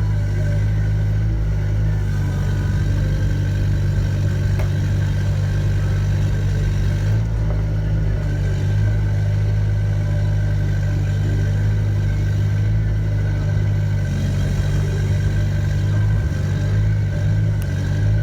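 Diesel engine of a Volvo ECR88 compact excavator running steadily, a constant low hum.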